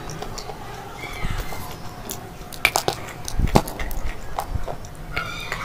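Biting and crunching a chalky slate pencil: a few sharp, crisp snaps and crunches, the loudest a little past halfway.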